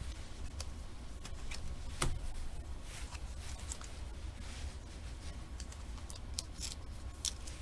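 Trading cards being handled as packs are gone through: scattered light clicks and rustles of cards being slid and flipped, with one sharper click about two seconds in, over a low steady hum.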